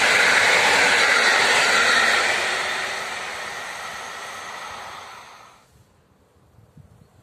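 Passenger coaches of a PKP Intercity train rushing past on the rails, a steady loud rolling noise from the wheels. The noise fades as the end of the train draws away, then cuts off to near quiet about five and a half seconds in.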